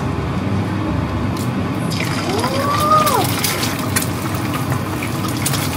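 Egg frying in a hot pan, sizzling; the sizzle turns louder and hissier about two seconds in as the egg goes into the oil.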